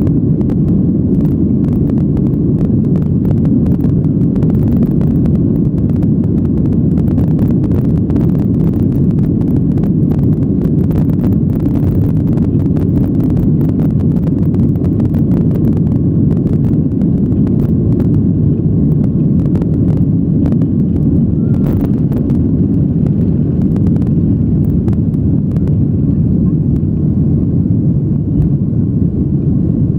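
Cabin noise of a Boeing 737 on its takeoff roll: a loud, steady, deep rumble from the jet engines at takeoff thrust and the wheels on the runway, with many small rattling ticks. The ticks thin out near the end as the aircraft lifts off.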